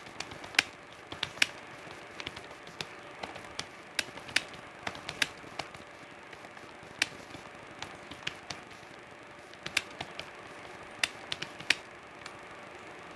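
Typing on a computer keyboard: irregular sharp key clicks, a few a second, with short pauses, stopping near the end.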